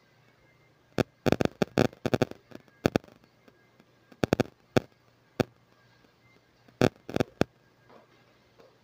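Electric pet clippers running with a faint steady hum while shaving through matted cat fur, broken by irregular sharp crackling snaps in clusters.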